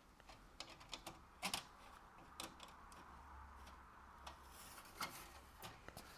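Faint, irregular clicks and taps, a dozen or so spread unevenly, of circuit cards being handled and set down on a workbench.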